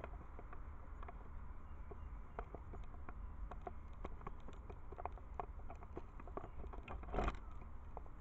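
Handling noise from a camera being adjusted and repositioned: scattered light clicks and taps over a low rumble, with a short louder rustle about seven seconds in.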